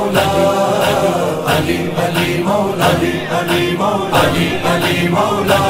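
Devotional chant music: voices chanting a melody over a steady beat of about two strokes a second.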